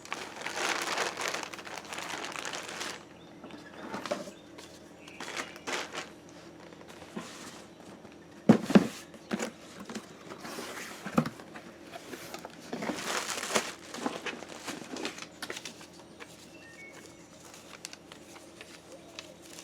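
Paper and plastic packaging crinkling and rustling in bursts as a parcel is opened and unwrapped, with a couple of sharp knocks about halfway through.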